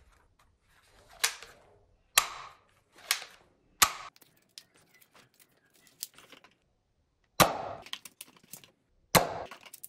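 Plastic toy foam-dart blaster being handled and worked, giving about six sharp plastic clicks and snaps at irregular spacing, with a lull in the middle.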